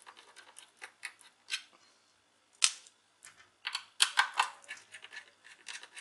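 Hands handling a metal-and-plastic laptop optical-bay hard drive caddy: irregular small clicks and scrapes, with a short lull around two seconds in.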